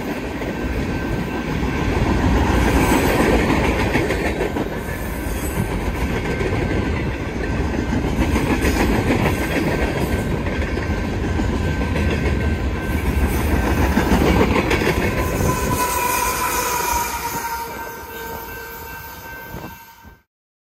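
Freight train's boxcars rolling past close by, a loud steady rumble with the clatter of steel wheels on the rails. It fades after about 17 seconds and then cuts off abruptly.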